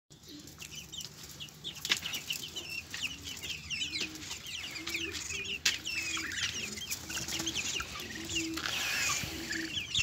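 A flock of domestic hens clucking: short low calls held on one pitch, repeating about once a second, under a dense run of short high chirps.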